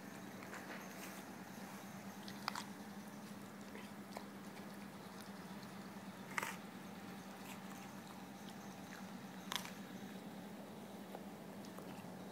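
Alaskan malamute chewing an apple, with a few sharp crunches spaced a few seconds apart over a faint steady hum.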